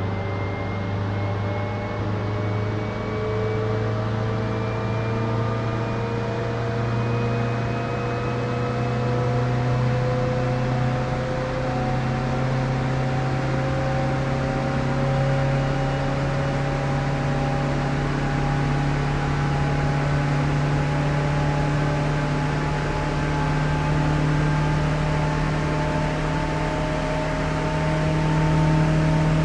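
KRL commuter electric train pulling away and accelerating: the traction motors' whine of several tones rises slowly and steadily in pitch, over a continuous rumble and hiss of running noise.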